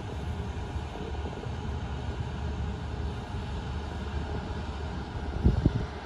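Steady low outdoor rumble of wind on the microphone, with a short burst of louder low buffeting near the end.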